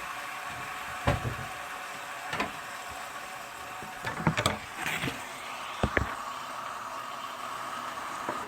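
Food frying in a pan on a gas stove with a steady sizzle, broken by several sharp knocks and clinks of a utensil against the pan: once about a second in, again a little later, a quick cluster around the middle, and two more soon after.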